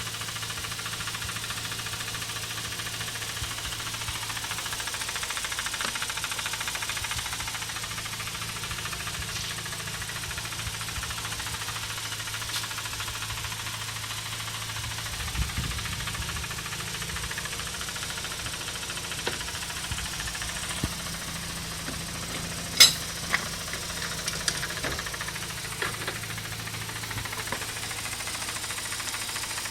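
Mazda RX-8's twin-rotor Renesis rotary engine idling steadily, with irregular knocks and clicks, a sharp loud one about two-thirds of the way through followed by a few smaller ones. The knocking comes from the secondary shutter valve (SSV), which the owner takes for a worn actuator link.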